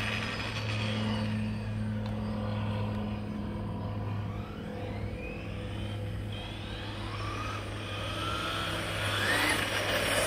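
Brushless electric RC car (MCD W5 with a TP5860 brushless motor) running down the street in the distance, its motor whine rising and falling in pitch as it speeds up and slows. Near the end the whine grows louder as the car comes back toward the microphone.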